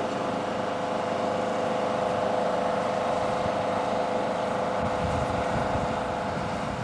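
Steady diesel engine drone from the train, with uneven low rumbling from about five seconds in.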